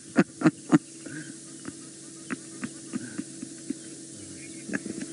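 A steady electrical-sounding hum with several short clicks and knocks scattered through it, the loudest three in the first second.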